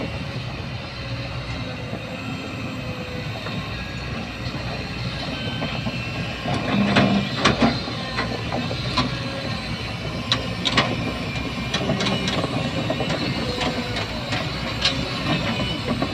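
Excavator running steadily as it moves, with sharp metallic clanks and squeaks from its crawler tracks. The clanks come mostly from about seven seconds in.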